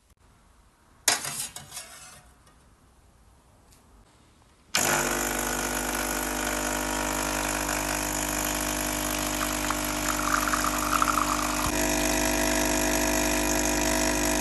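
A short clatter about a second in, then from about five seconds an espresso machine's pump running with a loud, steady hum while espresso pours into the mug.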